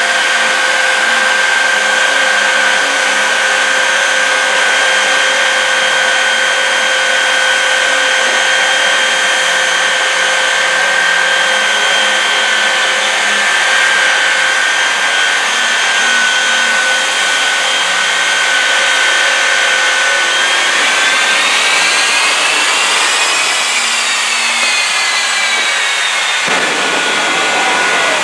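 Three Westinghouse J34 jet engines of the Shockwave Peterbilt jet truck running, a loud steady roar with a high whine. About twenty seconds in, the whine rises as the engines spool up, then falls back.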